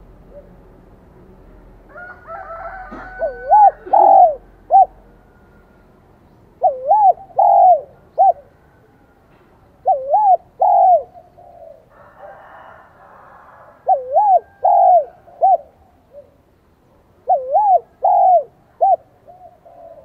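Spotted dove cooing in the high 'son' voice: a three-note phrase, the last note short, repeated five times about every three and a half seconds.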